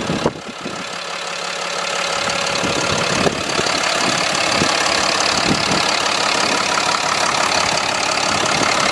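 Ram heavy-duty truck's Cummins 6.7-litre straight-six turbo diesel idling steadily, growing louder over the first few seconds and then holding.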